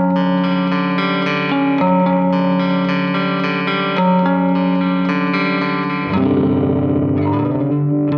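Electric guitar playing chords through an Empress Compressor mkII pedal with attack and release set too fast, so the compressor flickers on and off rapidly and gives a gritty pseudo-distortion. About six seconds in, the tone turns rougher and grainier.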